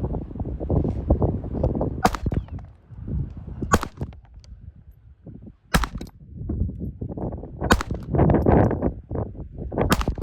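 Five single .22 LR shots from a Ruger Mark IV semi-automatic pistol, sharp cracks about two seconds apart, over continuous low rumbling noise.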